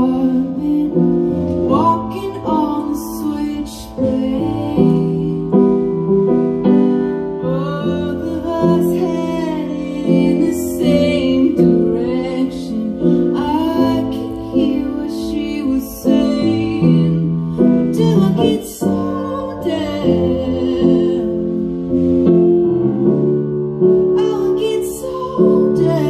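Live band music: a woman singing a slow melody over electric keyboard chords.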